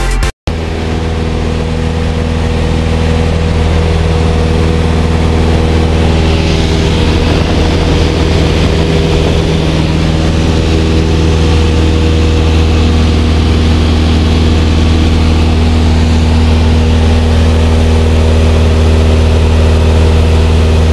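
Single-engine propeller light aircraft in cruise flight, heard from inside the cockpit: a steady drone of engine and propeller with a strong low hum.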